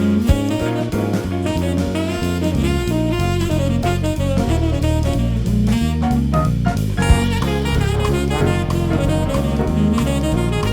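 Background music: upbeat jazz with saxophone, bass and drum kit.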